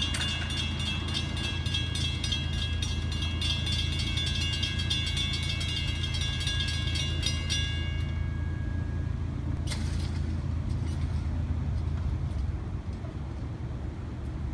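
Grade-crossing warning bell ringing rapidly and evenly, falling silent about eight seconds in as the lights keep flashing with the gates down. A steady low rumble runs underneath.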